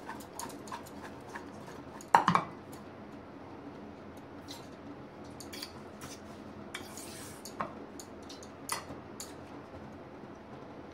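A fork stirring cornflour-coated sweet corn kernels in a stainless steel bowl: scattered light clinks and scrapes of metal on metal, with one louder clatter about two seconds in.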